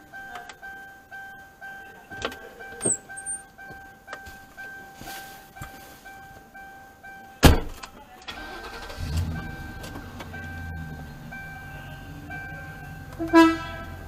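A car's warning chime pulsing steadily about twice a second, then one sharp loud bang about seven and a half seconds in. The car's engine starts a second or so later and idles low, and a short, loud pitched toot sounds near the end.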